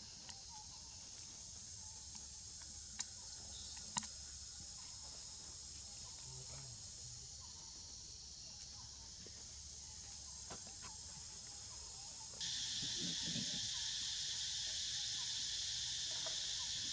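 A steady, high-pitched chorus of insects buzzing, with two sharp clicks about three and four seconds in. About twelve seconds in, the insect chorus suddenly gets louder.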